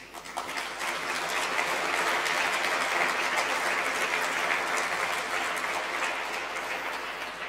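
Audience applauding, the clapping building over the first second or two and slowly tapering off toward the end.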